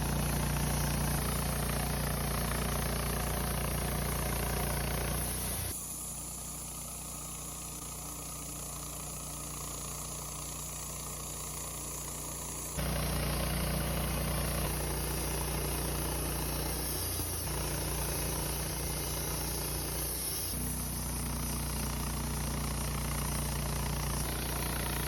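Band sawmill's engine running steadily, with sudden drops and rises in level about six and thirteen seconds in.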